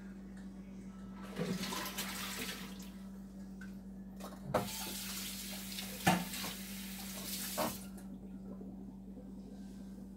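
Kitchen tap running water into a sink in two spells, with three sharp knocks during the second, under a steady low hum.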